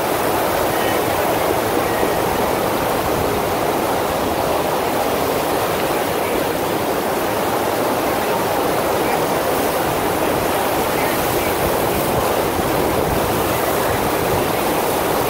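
Steady rushing of water from a FlowRider sheet-wave machine, its pumped sheet of water surging up the ride surface without a break.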